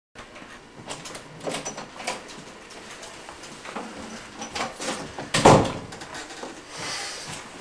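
Door handling and movement in a small room: scattered light clicks and knocks, with one loud thump about five and a half seconds in.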